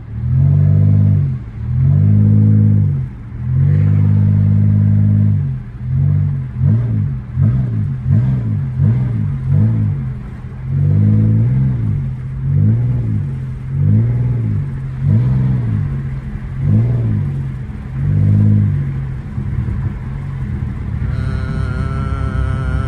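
Bass-heavy music playing on the car stereo inside the cabin: deep held bass notes, then sliding bass notes in a steady rhythm. About 19 seconds in the music drops out, leaving the steady rumble of the engine and road.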